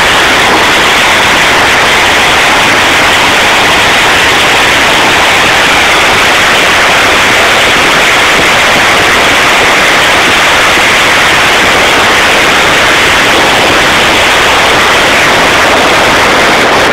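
New Year's fireworks going off densely all around, overloading the microphone into a loud, steady, distorted hiss in which no single bang stands out.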